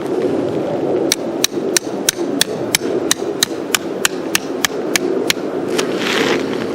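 Hammer blows, about fifteen in a steady run at roughly three a second, over a steady low background rumble.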